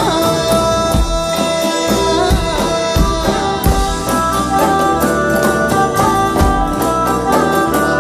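Background music: sustained melodic instrument lines over a drum beat.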